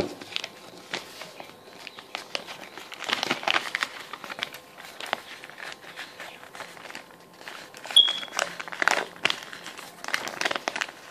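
Paper rustling and crinkling in irregular bursts as a sheet is folded and wrapped by hand around a folded paper knife, with a short high squeak about eight seconds in.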